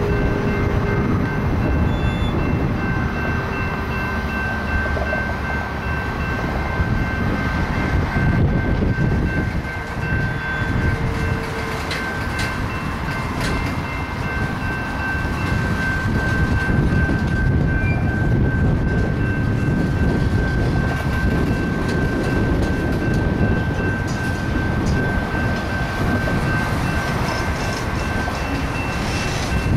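Freight train of tank cars and covered hoppers rolling slowly past: a steady rumble of wheels on rail, a few clanks of couplers and car bodies, and a thin, steady high squeal over it.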